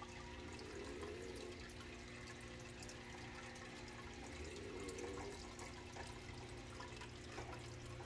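Aquarium water trickling and dripping faintly over a low steady hum.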